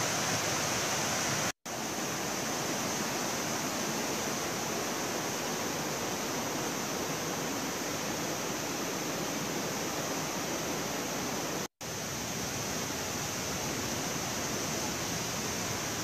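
Steady rush of a mountain-stream waterfall cascading over rock, cut by two brief silent dropouts, one about a second and a half in and one near twelve seconds.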